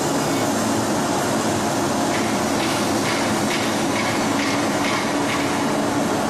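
Aluminium rod rolling mill running with a steady, dense mechanical noise and a low hum. From about two seconds in, a run of light ticks or clanks about twice a second rides over it.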